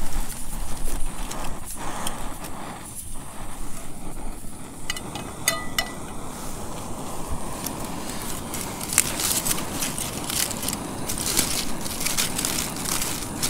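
Aluminium foil crinkling and rustling as fried mushrooms are tipped into it and it is folded over by hand, with a few light clinks near the middle and a denser run of crackling in the last few seconds.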